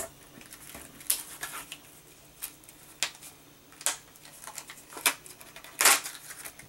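Clear plastic stamp sheets being handled: a handful of irregular crinkles and light clicks, the loudest a longer crackle about six seconds in.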